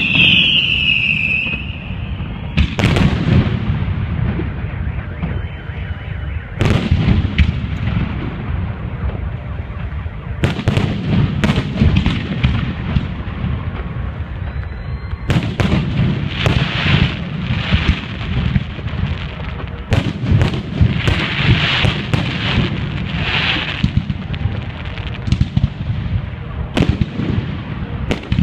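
Fireworks display: a steady run of shells bursting in loud bangs over a low rumble and crackle. In the first second or so, whistling rockets glide down in pitch.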